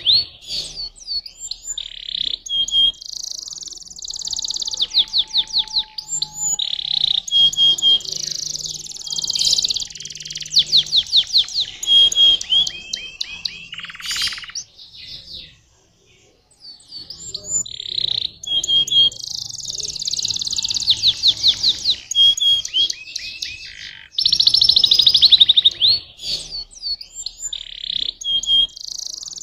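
Young domestic canary singing long phrases of fast trills and chirps, with a brief pause about halfway through.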